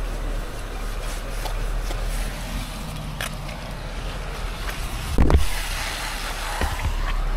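Wind rumbling on a head-mounted camera's microphone while a squeegee scrapes over a window and its frame, with a single heavy thump about five seconds in, the loudest sound.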